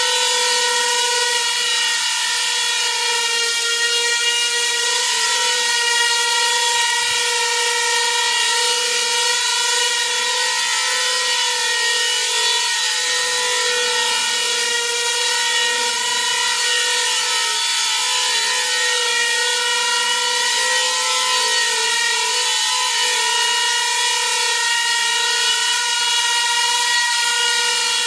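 Small coaxial-rotor copter hovering, its motors and two stacked rotors whining steadily at a nearly constant pitch that wavers slightly as it corrects its attitude.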